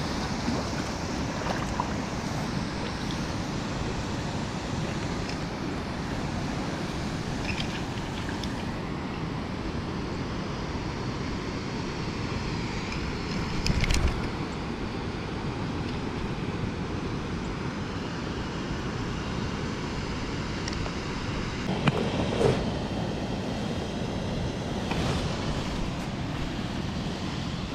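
Steady rush of river water flowing over and below a weir dam. A couple of short, louder noises stand out over it, one about halfway through and one later.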